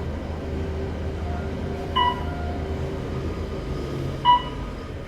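Traction elevator car in motion, with a steady low rumble from the ride. Two short electronic beeps sound from the car about two seconds apart.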